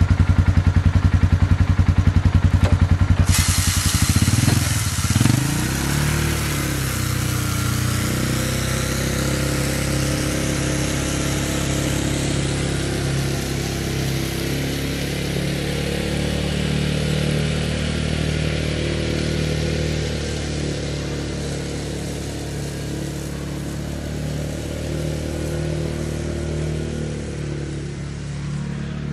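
Polaris Ranger UTV engine idling close by, then revving up about four seconds in and running steadily as it pulls away, growing gradually fainter. A steady hiss starts about three seconds in as the rear-mounted 12-volt electric broadcast spreader begins throwing fertilizer.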